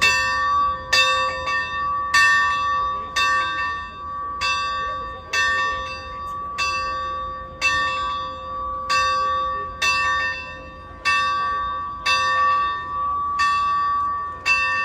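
Bell of the Santa Fe 3751 steam locomotive ringing steadily, about one stroke a second, each stroke ringing on into the next.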